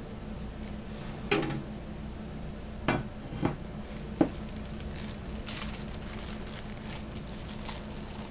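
Dishes and utensils being handled on a kitchen counter: about four clatters and knocks in the first half, then lighter ticks, over a steady hum.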